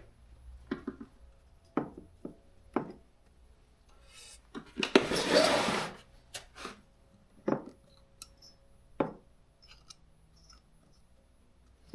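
Hand tools working on the chainsaw's ignition-coil Torx bolts: a string of scattered clicks and taps of metal tool and small parts, with one louder scratchy, rasping burst lasting about a second near the middle.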